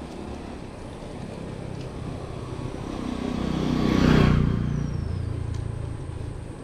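A motor vehicle passing close by: engine and road noise swell to a peak about four seconds in, then fade away.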